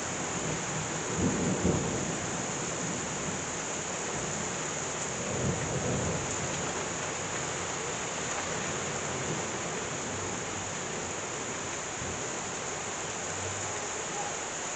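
Heavy rain pouring steadily during a thunderstorm, with low rumbles of thunder about a second in and again around six seconds.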